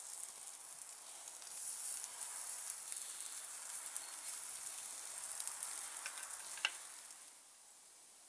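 Raw ribeye steaks sizzling directly on red-hot lump charcoal, a steady high hiss with a few sharp crackles. The sizzle drops away about seven seconds in.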